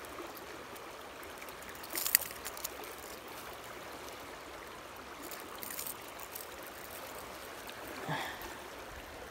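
Shallow river running over stones: a steady rush of water. A few short clicks cut through it, the loudest about two seconds in.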